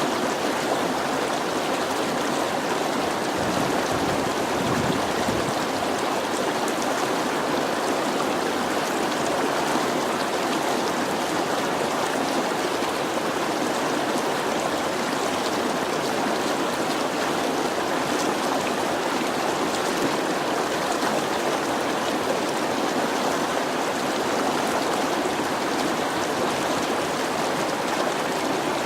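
Running water of a stream or river, flowing steadily.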